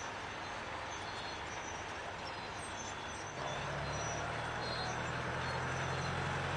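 Steady rushing noise of a forest fire burning. A little over three seconds in, a large vehicle's engine starts to be heard idling with a steady low hum, and the sound grows louder.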